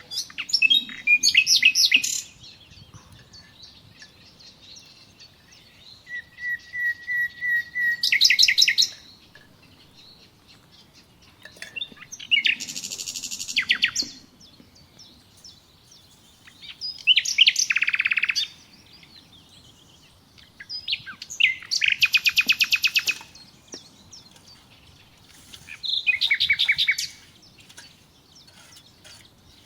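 A songbird singing: six short phrases of rapid high trills, repeated every few seconds, one of them opening with a held whistle-like note.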